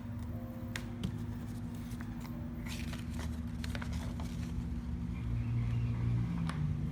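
Paper and plastic packaging rustling and crinkling in short clicks as the freebie items are handled, over a steady low hum.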